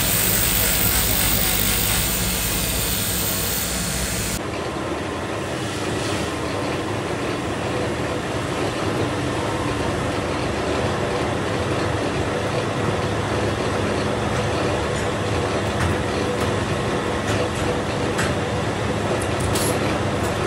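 For the first four seconds, an electric belt grinder running, its abrasive belt grinding a steel fork blank with a bright, loud hiss over the motor's hum. It then changes abruptly to steady workshop machine noise, with sharp metal clicks near the end as fork blanks are worked in a steel jig.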